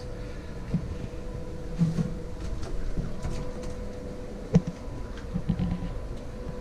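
A steady hum of running equipment in a yacht's engine room, with a fainter hum an octave higher over a low rumble. Scattered knocks and bumps come through it, the sharpest about four and a half seconds in.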